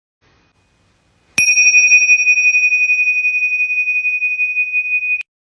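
A single bell strike about a second in, ringing on as one steady high tone with a slight waver for about four seconds, then cut off suddenly.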